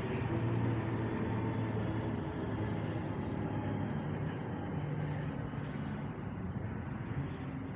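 Steady low rumble of vehicle engines running nearby, with a hum that shifts slightly in pitch.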